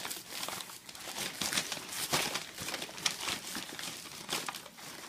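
Wrapping paper being torn and crumpled as a present is unwrapped: irregular crinkling and ripping throughout.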